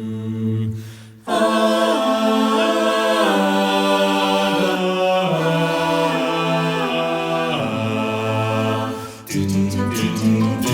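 A barbershop chorus singing a cappella: full chords held and moving from one to the next, with a short drop-off about a second in and another near the end, where a few brief percussive strokes sound.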